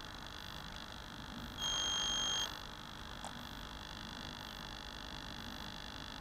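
A single steady electronic beep, about a second long, starting between one and two seconds in, over a steady electrical hum and hiss.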